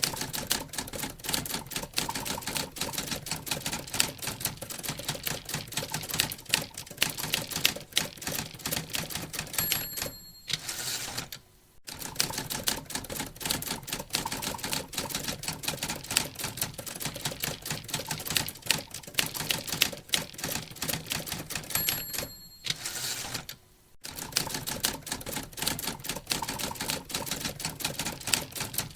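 Typewriter typing fast, its keys clacking in quick irregular strikes. Twice the end-of-line bell dings, and after each ding the carriage is returned with a second-long sliding rattle before typing resumes.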